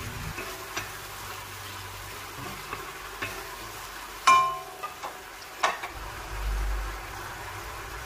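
Sauce simmering and sizzling in a metal wok while a wooden spatula slowly stirs it, with a few knocks of the spatula against the pan; the loudest, about four seconds in, rings briefly.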